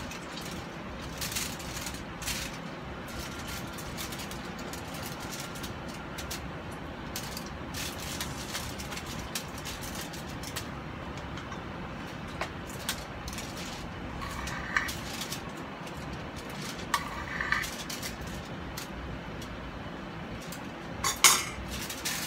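Kitchen handling sounds: the aluminium foil lining of a metal roasting tray rustling and crinkling as hands rub marinade into a raw chicken, with scattered small clicks and a few louder clinks near the end, over a steady background noise.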